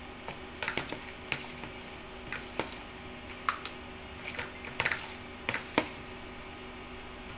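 Metal spoons clinking and scraping against a plastic basin and small plastic tubs while soft ice cream is scooped out, a dozen or so irregular sharp taps over a steady low hum.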